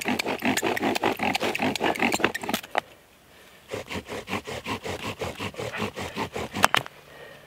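A homemade wooden bow drill spindle is being sawn back and forth against a cedar fireboard. Each stroke gives a short scraping squeak, about five strokes a second. The strokes pause briefly about three seconds in, then start again and end with a sharp click near the end. The top of the spindle turns in a bearing block greased with pepperoni, and the cedar is not giving the shavings a fire needs.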